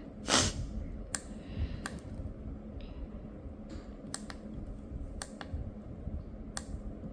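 Plastic twisty puzzle being turned by hand: a short rustling burst of handling just after the start, then sharp, irregularly spaced clicks of the layers snapping into place.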